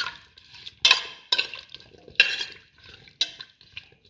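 A spoon stirring wet potato pieces in a metal pressure cooker pot, scraping against the pot in separate strokes roughly once a second, with lighter scrapes between.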